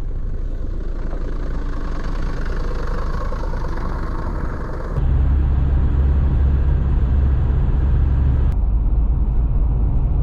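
A steady low rumble with no clear pitched engine note. About halfway through it jumps abruptly to a louder, deeper rumble, which then runs on steadily.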